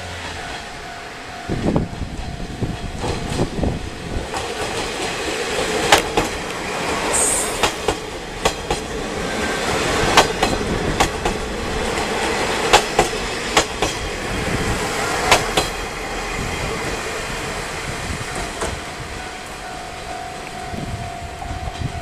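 Resort Shirakami No. 1 train running on the rails, its wheels clacking over the rail joints in a run of sharp knocks over a steady rumble. The knocks are heaviest through the middle and ease off near the end.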